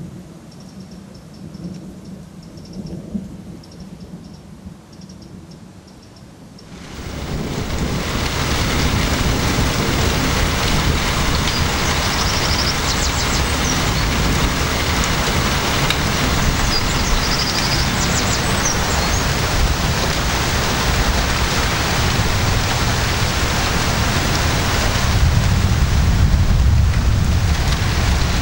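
Low rumbles of thunder, then about seven seconds in a heavy thunderstorm downpour comes in suddenly: loud, steady rain, with deeper thunder rumbling under it near the end.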